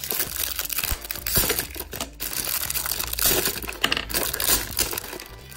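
Black plastic-wrapped Beyblade booster packets tipped out of a cardboard box onto a wooden table. The wrappers crinkle and rustle, and the hard plastic parts inside give several sharp clicks and clinks.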